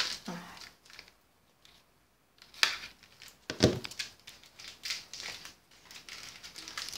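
Hands handling and opening the tube packaging of a Wink of Luna brush pen. A short quiet gap, then a sharp click and a louder knock about a second apart, followed by lighter scraping and rustling of the package.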